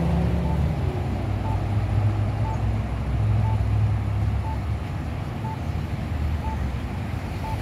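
Road traffic passing steadily, with a pedestrian crossing signal's push-button unit beeping a short locator tone about once a second while the signal shows wait.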